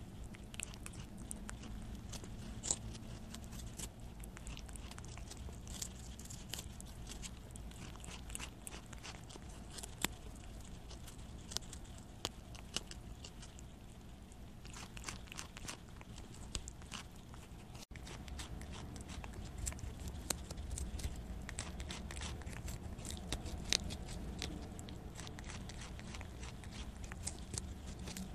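Prairie dog nibbling and chewing a piece of Korean melon (chamoe), picked up close by a clip-on microphone worn on its body: many quick crunching bites and wet clicks over a steady low rumble.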